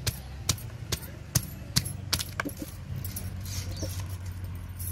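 A run of light, sharp clinks, about two a second, from glass bangles on a wrist knocking as hands grip and work a plastic pot of sandy potting soil. A low steady hum comes in during the second half.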